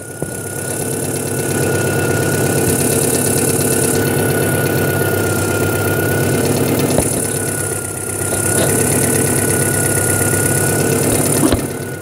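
Honda H22A 2.2-litre DOHC four-cylinder engine idling warm with a new knock sensor fitted, its ignition timing set at about 15 degrees. A thin, steady high whine runs over the idle and breaks off briefly partway through. The level swells slightly about a second in and dips briefly near the end.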